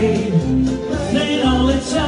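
A man singing into a microphone over a backing track, holding long notes.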